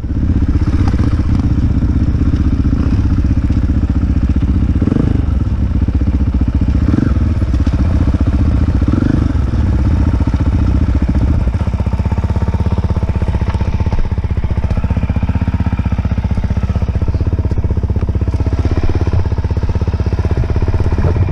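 Dirt bike engine running as the bike is ridden along a dirt trail. From about halfway it settles to a lower, steadier note as the bike slows toward a stop.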